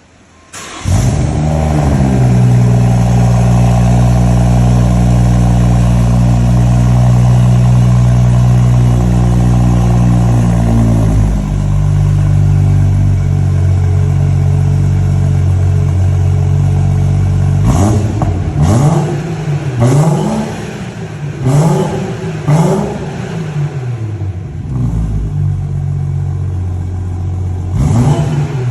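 BMW 440i's B58 turbocharged 3.0-litre inline-six starting up about a second in, settling into a steady fast idle that drops a little lower partway through. Near the end it is blipped through a quick series of short revs, with one more rev just before the end.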